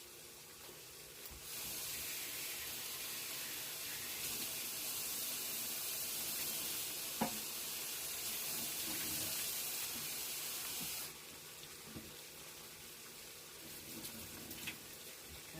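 Kitchen tap running for about ten seconds as squash is rinsed under it, starting and stopping abruptly, with a pan of pork stir fry sizzling faintly throughout. One sharp knock about seven seconds in.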